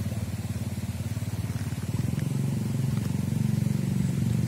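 An engine running steadily at idle with a fast, even low throb.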